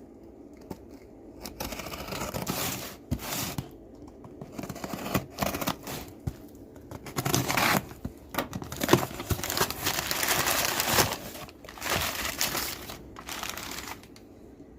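A mailed parcel being opened by hand: packaging torn and crinkled in irregular bursts, loudest in the second half.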